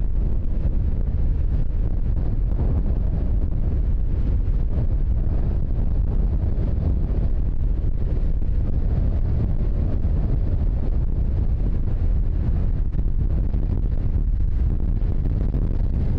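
Strong storm wind buffeting the microphone in a steady low rumble, over heavy surf breaking on a rocky shore.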